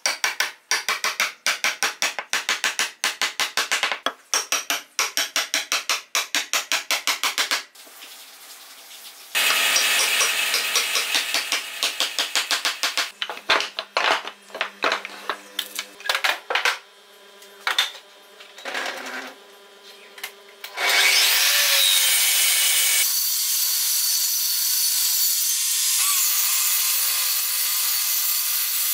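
A sequence of woodworking sounds: several seconds of quick, evenly spaced strokes on wood, then a stretch of dense scraping noise and scattered knocks of wood being handled. About three-quarters of the way through, a benchtop table saw spins up with a rising whine and runs steadily.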